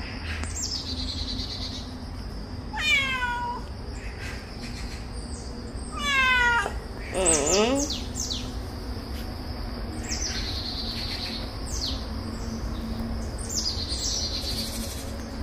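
Domestic cat meowing three times, each call sliding down in pitch, at about three, six and seven and a half seconds in. Birds chirp faintly in the background.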